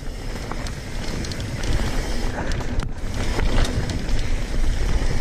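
Mountain bike riding fast down a packed-dirt singletrack, heard from a handlebar-view action camera: a steady rough rush of tyres on dirt and wind, with a few sharp knocks from the bike going over bumps.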